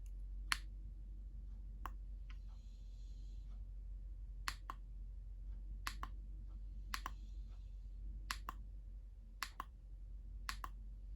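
Plastic push button on a handheld concert glowstick clicking, pressed about every second or so, often as a quick double click of press and release, with a soft rustle of handling between some presses over a low steady hum.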